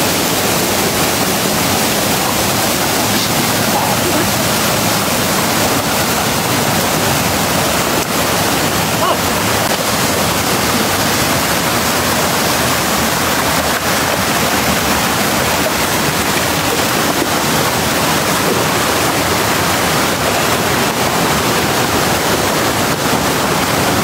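Mountain stream rushing over rocks: a loud, steady rush of water.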